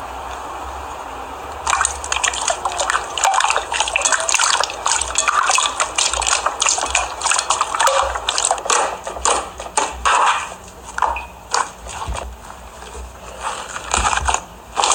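Slime being squished and pressed by hand, making wet crackling and popping: dense rapid pops that thin out to scattered ones about halfway through.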